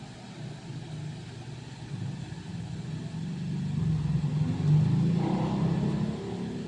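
Low rumble of a passing motor vehicle, swelling about two seconds in, loudest past the middle, then easing off.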